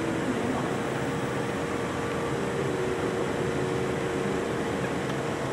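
Steady machine hum and hiss with a faint constant tone, like the air handling of an enclosed animal house.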